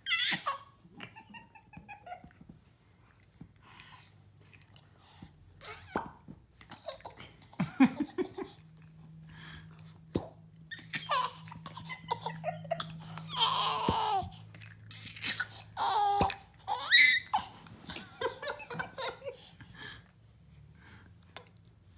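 Baby laughing in bursts of belly laughs and giggles, with quiet gaps between; the longest, loudest laughs come in the middle.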